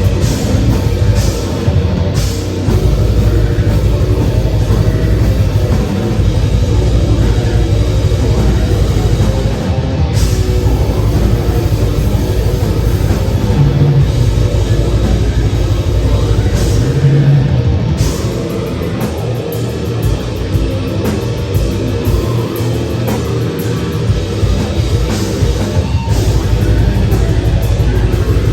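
Death metal band playing live: heavily distorted electric guitars and bass over a fast drum kit, with several cymbal crashes.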